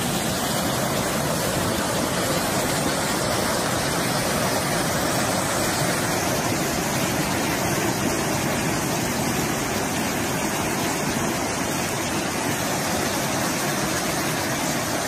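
Swollen, muddy flash-flood river rushing over and around boulders: a steady, unbroken noise of fast water.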